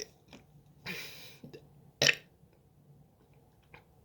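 A person drinking: a breathy sip or gulp, then a short sharp sound about two seconds in, with a few faint swallowing clicks near the end. It is the drink taken to work up a burp.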